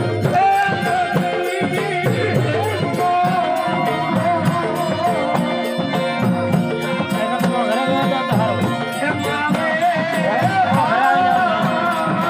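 Harmonium playing a bhajan melody over steady held reed tones, with a drum and small jingling cymbals keeping an even rhythm.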